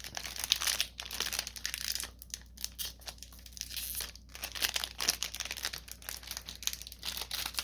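Plastic wrapper of a Magic: The Gathering booster pack crinkling and crackling in irregular rustles as it is handled and torn open by hand.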